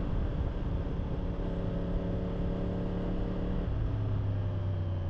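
Yamaha R1 inline-four engine running steadily under wind and road noise, picked up by a helmet lavalier mic. About three-quarters of the way in, the engine note drops suddenly to a lower pitch.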